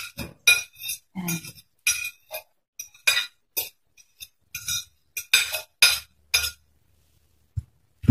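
Metal fork clinking and scraping against a ceramic plate and bowl while chopped vegetables are pushed off the plate: about a dozen short, sharp clinks at an irregular pace, then a low knock near the end.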